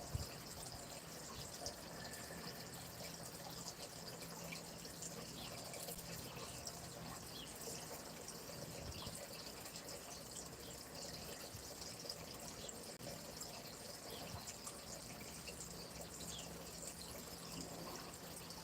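Faint, steady running water of a small stream, with small drips and splashes through it.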